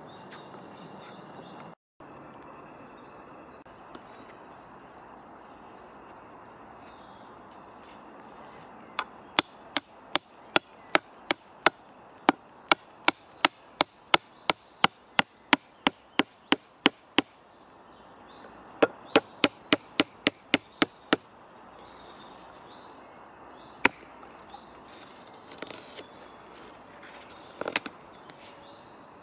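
Sharp knocks in two quick runs, about two and a half strikes a second: the metal hook that pins the birch spoon blank to the dead log is being driven in. One lone knock follows, then a few light gouge cuts in the wood near the end.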